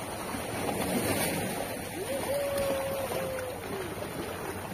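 Sea surf washing against the shoreline rocks, swelling and ebbing. Partway through, a faint thin tone rises, holds for about two seconds and falls away.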